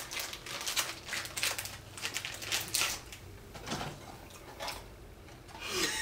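Plastic snack wrapper crinkling and rustling as it is handled, in quick irregular crackles that are busiest for the first few seconds and then thin out.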